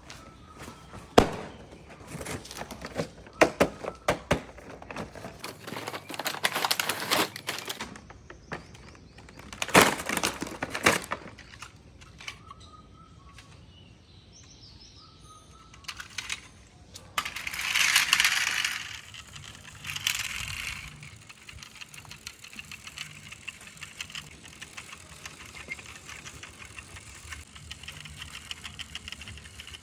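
Toys and packaging being handled: a run of sharp clicks and knocks, then a louder rustle about 17 seconds in and a shorter one soon after, followed by a faint steady whirr.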